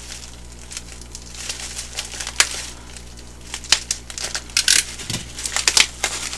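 Plastic bubble wrap crinkling and crackling as hands pull it open around a book, in scattered sharp crackles that come thicker in the second half.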